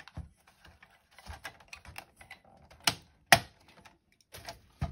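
Irregular light clicks and taps, with two sharp snaps about three seconds in, as a plastic cable tie on the wiring inside a metal set-top box chassis is cut with a utility knife.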